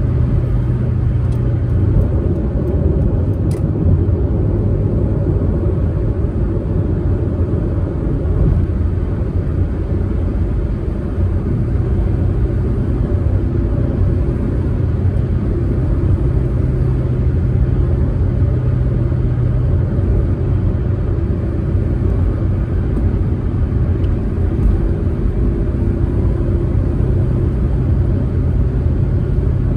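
Proton Saga MC2's four-cylinder engine running steadily under way, with low road and tyre rumble from the moving car.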